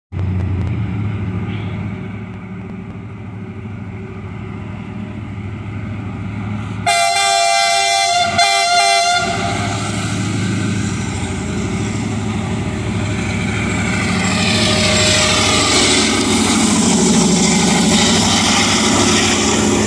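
Diesel freight locomotive rumbling as it approaches, then sounding its horn about seven seconds in for about two seconds with a brief break. From about fourteen seconds the engine and running gear grow louder as the locomotive passes close by.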